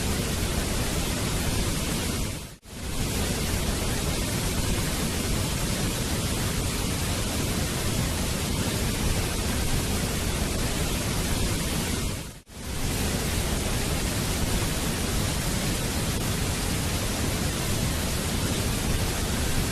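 Waterfall water rushing in a steady, even roar, dipping briefly to near silence twice, about ten seconds apart.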